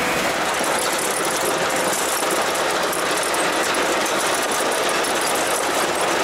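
GMC C7000 dump truck's engine running steadily as the truck drives along with its snow plow down, a dense, even noise with no let-up.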